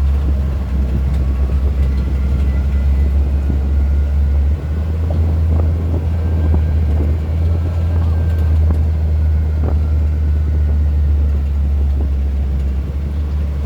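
ATV engine running steadily under way, a low drone that steps to a slightly higher pitch about four and a half seconds in, with scattered knocks and rattles from the ride.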